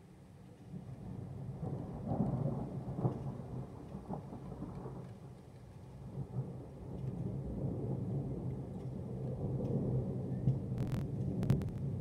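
Thunder rolling in low rumbles that build about a second in, ease off midway and swell again, with a few sharp clicks near the end.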